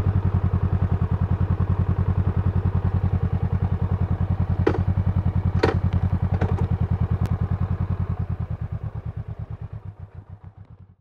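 Honda CMX500 Rebel's parallel-twin engine idling steadily with an even, pulsing beat. A few sharp clicks come in the middle. The sound fades out near the end.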